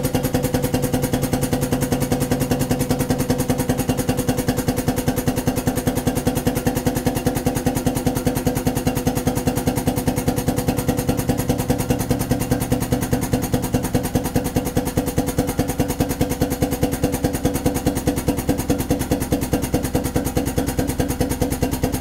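Pneumatic lift drive of an ATEX drum tipper running steadily under air power with a fast, even pulsing, raising a full drum on its carriage.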